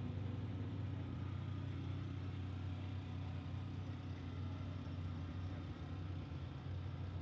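A vehicle engine idling with a steady low hum.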